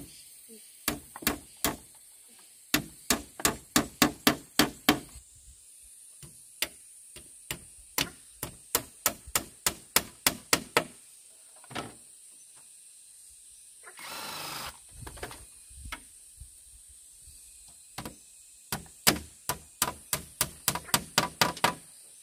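Hammer striking wood in quick runs of about four blows a second, with pauses between the runs. About fourteen seconds in comes a short rasping noise.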